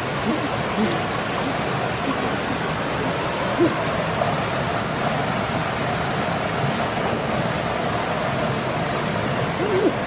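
Mountain stream water running steadily over rocks, a continuous rushing.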